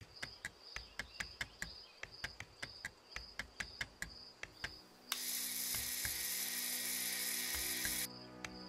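Electronic music: a rapid ticking click beat with a pulsing high beep, joined by a low sustained drone. A loud burst of even hiss comes in about five seconds in and cuts off abruptly about three seconds later.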